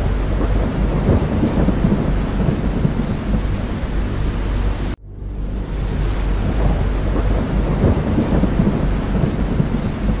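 Rain mixed with a deep, steady aircraft rumble. The sound cuts out abruptly for a moment about five seconds in, then starts again.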